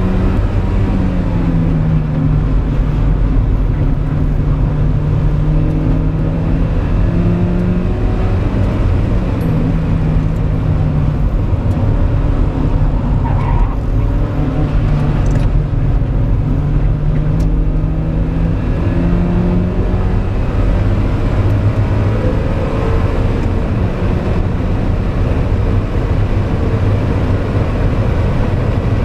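Mazda MX-5 NB 1.8's inline-four engine, heard from inside the cabin while being driven hard on a race track. The engine note holds steady for several seconds at a time and breaks off and changes pitch several times as the driver shifts or lifts. Heavy low road and tyre rumble runs underneath.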